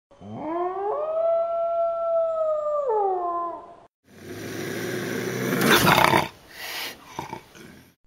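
Animal calls: first a long pitched call that rises, holds steady for about two seconds, then falls away. After a brief gap comes a rougher, noisier call that swells to its loudest about two seconds later and then breaks into a few shorter bursts.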